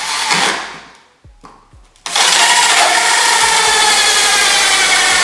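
Drill driving a 4-inch hole saw into the rear parcel shelf panel. After a few light knocks it starts about two seconds in and cuts steadily and loudly, its pitch wavering slightly.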